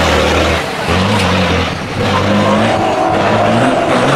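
Hino Ranger Dakar rally truck's diesel engine revving hard under load as the truck drives past. Its pitch rises and falls with the throttle, with brief lifts about half a second and two seconds in.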